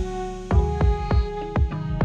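Background music: electronic track with a heavy bass and a steady drum beat.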